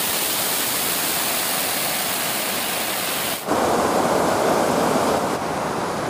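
Waterfall cascades of water pouring over sandstone rock ledges, a steady rush of falling water. A little past halfway it switches abruptly to a louder, deeper rush, as a second stretch of the cascades is heard.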